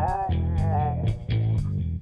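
Background music: electric guitar playing bending notes over a bass line and a steady beat.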